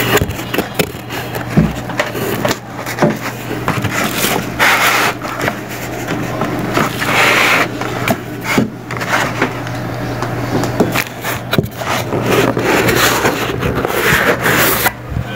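Cardboard router packaging being pried open and handled: continual scraping and rubbing of cardboard with frequent small knocks, over a steady low hum.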